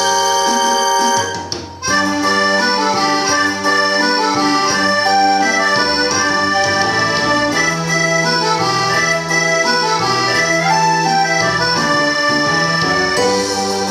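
Instrumental music at the opening of a karaoke song, with a short dip about a second and a half in before the melody carries on.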